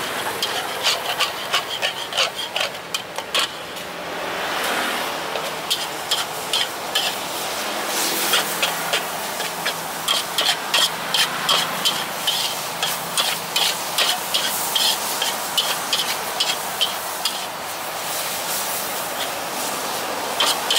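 Cooking utensils clinking and scraping at a noodle stall, in many quick, sharp strokes, with a short burst of hissing about four seconds in.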